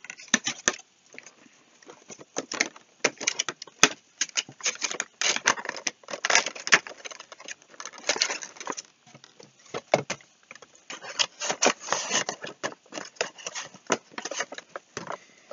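Cardboard and plastic packaging being handled and turned over: irregular rustling and crinkling with sharp clicks and taps, coming in short flurries with brief pauses.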